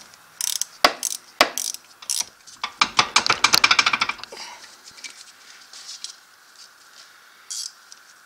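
Ratchet wrench clicking as it backs off the 13 mm nut on the rear diff's driveshaft yoke bolt. A few separate clicks come first, then a fast run of clicks in the middle, then only faint occasional clicks after about four seconds.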